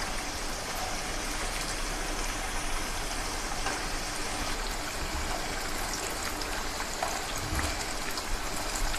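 Raw banana slices deep-frying in hot oil in a kadhai, a steady sizzling hiss.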